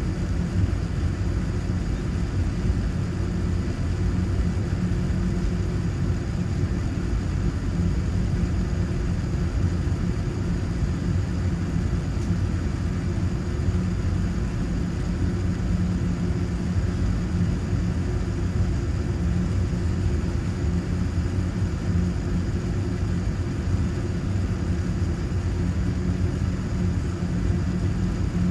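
Steady low vehicle-cabin rumble with a constant hum and no change in level.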